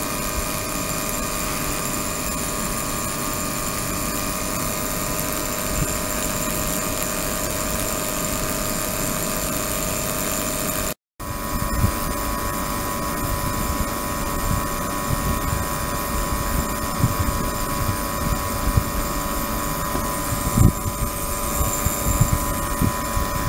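Ultrasonic system running in a water-filled tank: a steady droning hum with several held tones, the audible side of the ultrasonic vibration and cavitation in the water. It cuts out briefly about eleven seconds in, and low crackles and thumps come through in the second half.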